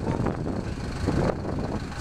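Vehicle engines running steadily with a low rumble, with wind buffeting the microphone.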